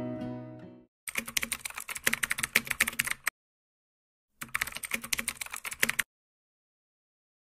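Computer keyboard typing sound effect: two bursts of rapid keystrokes, the first about two seconds long and the second about a second and a half, with a short silent gap between. Soft guitar music fades out at the very start.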